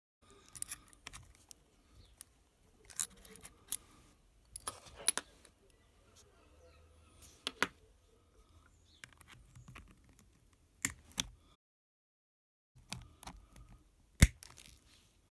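Small metal clicks and taps of tools handled on a rebuildable atomizer deck with a fused clapton coil in place. Near the end comes one sharp snip, the loudest sound, as flush cutters trim the coil's wire lead.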